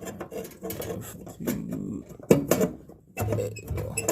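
Metal clicks and knocks as gas supply tubing and its fittings are handled and pushed back into place. A low hum comes in about three seconds in.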